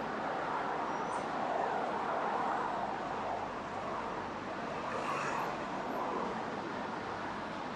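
Steady road traffic noise: a continuous rush of passing cars and buses.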